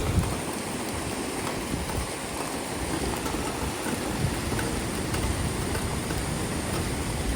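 Floodwater from a creek in flash flood rushing steadily, a dense, even noise of fast-moving water.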